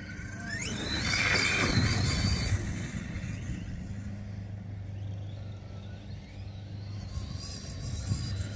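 Radio-controlled car accelerating across grass: its motor whine climbs steeply in pitch about half a second in, followed by a louder rush of noise for a couple of seconds that settles to a lower steady running sound as the car moves off.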